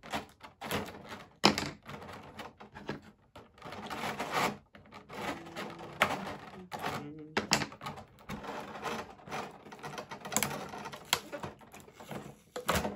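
Plastic packaging and tape being worked by hand: irregular crinkling, clicks and taps, with a few sharper snaps, as tape is pulled off small action-figure accessories.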